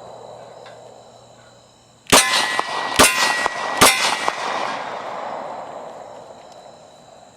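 Three shots from a Glock 23 .40 S&W pistol, a little under a second apart, each hitting a steel target that rings on after the crack. A fading ring from an earlier hit dies away over the first two seconds.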